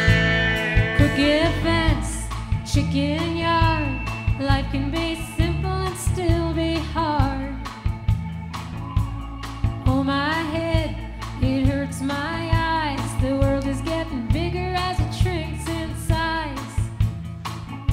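Background music: a song with a sung vocal line over bass and drums with a steady beat.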